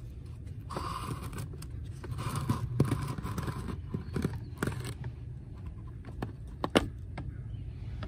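Honda Civic cabin air filter cartridge scraping and knocking against its plastic housing as it is wiggled up, down and side to side to work it free. Short rustling scrapes come with scattered clicks, and there is a sharper knock late on.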